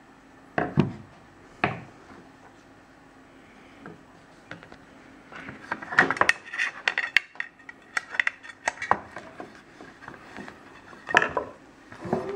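Hard plastic parts of a van's retracting window shade, with small tools, handled on a tabletop. There are two sharp knocks early on, then a run of clicks and clatters through the middle, and another loud knock near the end.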